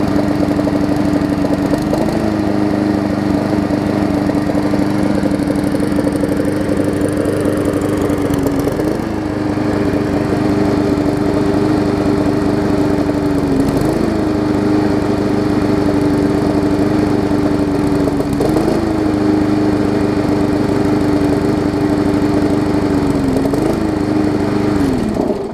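Single-cylinder Briggs & Stratton Classic push-mower engine running at a steady speed, with a brief waver every four to five seconds. It is still not running 100%, which the owner puts down to moisture and condensation in the engine. The engine note slows and drops away right at the end.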